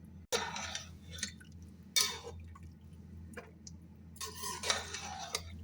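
Metal cookware and a spoon in a pressure cooker pot of mutton and water: three short bursts of scraping and clinking.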